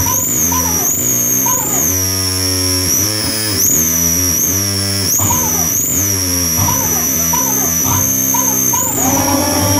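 Loud distorted electronic music played live through mixers and effects units: pitched tones that swoop and slide over and over, above a steady low drone, with a high whine rising and falling about once a second.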